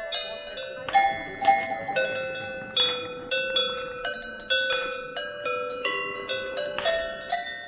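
A row of tuned metal cowbells hung from a wooden rail, struck one after another by hand to play a melody; each bell gives a bright clang that rings on under the next notes.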